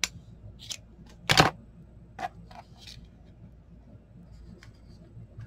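Hands handling paper and a fabric ruffle on a craft cutting mat: scattered small clicks and rustles, with one louder knock about a second and a half in.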